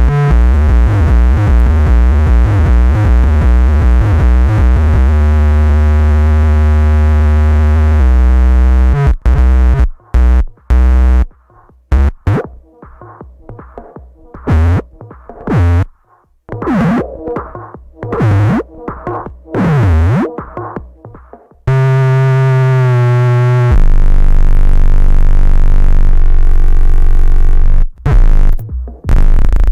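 Harsh electronic feedback from a Gemini CDM-3600 DJ all-in-one unit with its own output fed back into its mic input: a loud, pitched, pulsing drone. About nine seconds in it starts cutting in and out, with swooping pitch glides down and back up, then a loud steady drone and low buzz return near the end.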